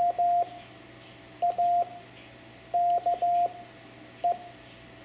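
Morse code (CW) sent as steady beeps of one mid pitch, spelling the word JAKE: the tail of J (dit dah dah dah), then A (dit dah), K (dah dit dah) and a single-dit E, with about a second's pause between letters.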